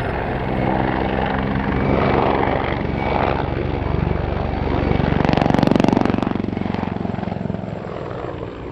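Helicopter rotor and turbine noise in flight, with a steady rapid blade beat, swelling to its loudest about five to six seconds in as it passes closest, then easing off.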